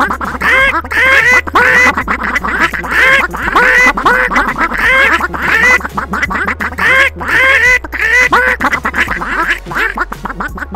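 Comic novelty music built from rhythmic, squawking cartoon bird calls, one or two a second, over a steady bass line.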